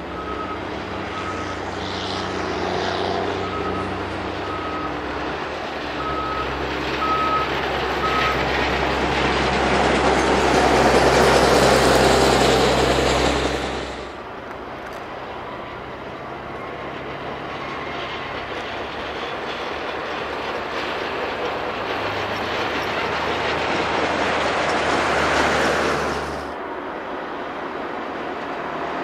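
Diesel-powered rail maintenance machines of a tie gang running along the track past the listener, one after another. The first one's engine builds to a peak and cuts off suddenly, with a short alarm beeping about once a second during its approach. A second machine's engine then builds and also cuts off suddenly near the end.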